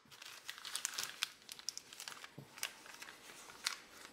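A white plastic mailing bag being torn open and crinkled by hand, with irregular sharp crackles throughout.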